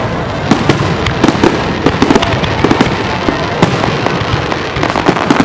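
Aerial fireworks display going off in a dense, continuous run of loud bangs and crackles, several reports a second with no let-up.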